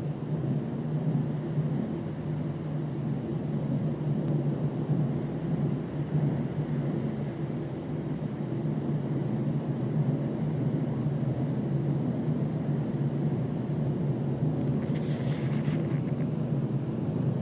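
Steady low hum of a machine running, with a short scratchy rustle about fifteen seconds in.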